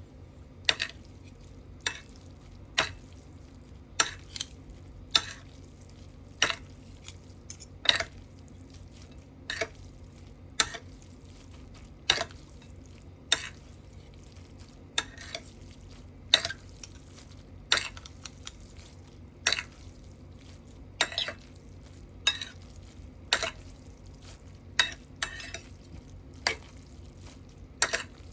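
A utensil clinking against a dish of instant noodles, about once a second, over a steady low hum.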